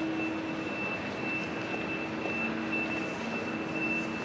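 Steady outdoor urban noise with a constant mechanical hum and a faint high steady whine.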